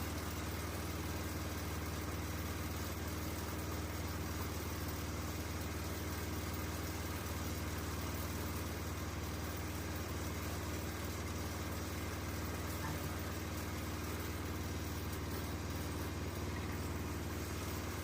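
Sawmill engine running steadily with an even low hum, not changing in speed or load.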